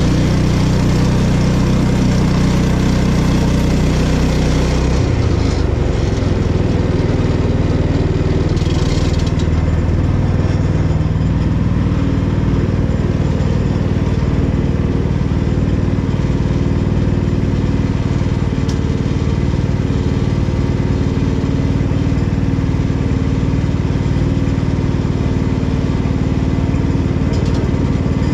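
Gasoline engine of a Woodland Mills portable band sawmill running, with the band blade cutting through a small cherry log. About five seconds in, the engine note drops and settles as the cut ends. The engine then keeps running steadily to the end.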